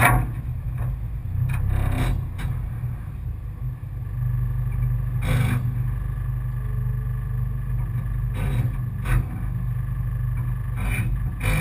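Four-cylinder enduro race car's engine idling steadily, heard from inside the car as a low rumble, with a handful of short sharp knocks through the body.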